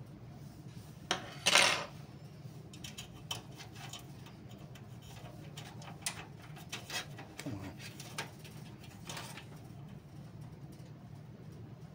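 Hand handling of a desktop PC's steel case and power switch: scattered small plastic-and-metal clicks and clatter, with one louder knock about a second and a half in, over a low steady hum.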